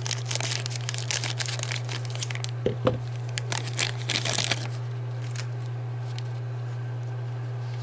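Packaging crinkling and tearing by hand as a boxed miniature figure is unwrapped, in quick irregular rustles for about the first four and a half seconds. After that only a steady low electrical hum remains.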